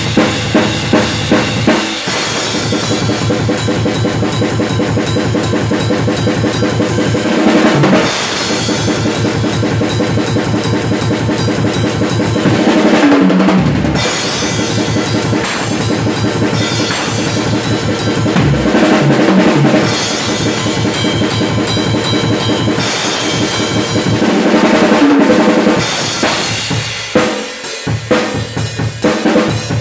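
Acoustic drum kit played solo at speed: a long run of fast, even strokes with cymbals ringing over them, broken every few seconds by short fills, then thinning to scattered separate hits near the end.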